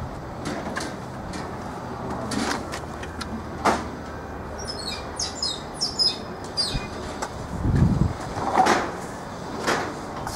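A small bird chirps a quick run of high notes about five seconds in, over a steady outdoor background with scattered clicks and knocks and a low thump near eight seconds.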